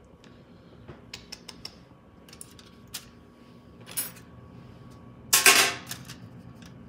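Kitchen handling noises: scattered light clicks and taps of utensils and food being handled, then one louder, brief rustling clatter about five seconds in.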